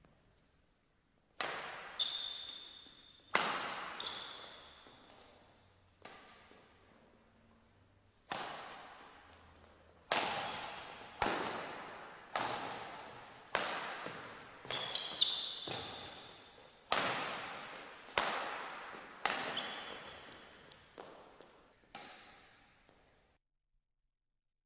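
Badminton rackets striking a shuttlecock in a rally, about one hit a second, each with a long echo from a large sports hall, with brief squeaks of court shoes between hits. The sound cuts off near the end.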